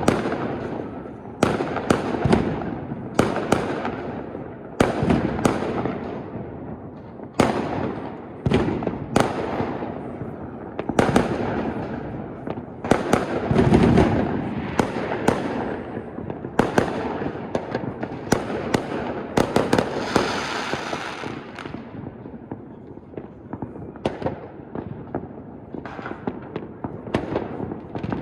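Aerial fireworks display: many shell bursts going off in quick succession, each bang trailing off in a rumble. The bangs thin out over the last several seconds.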